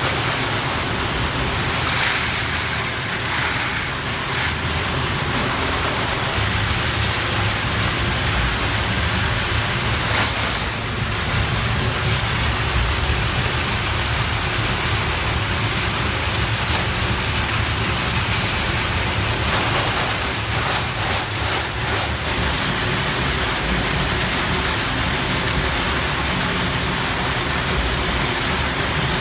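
Steady drone of workshop machinery with a constant low hum, broken by short high-pitched rattling bursts a couple of seconds in, about ten seconds in and several more around twenty seconds in.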